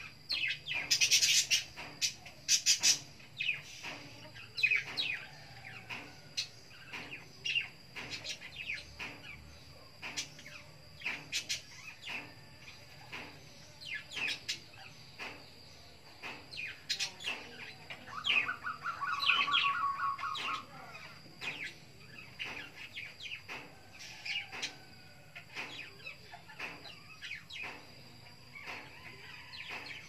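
Caged murai songbird chirping and calling in short, sharp notes throughout, with a rapid trill of repeated notes about eighteen seconds in.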